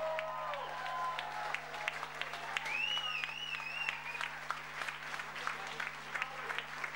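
Audience applauding, dense irregular clapping throughout. About three seconds in, a wavering high whistle rises above the clapping.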